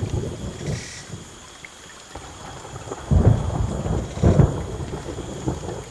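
Thunder rumbling ahead of a rainstorm: a low rumble dies away in the first two seconds, then two louder rolls come about three and four and a half seconds in.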